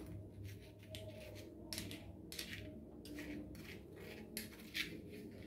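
A dozen or so short, irregular light scraping and rustling strokes from handling a container of brown sugar and a teaspoon.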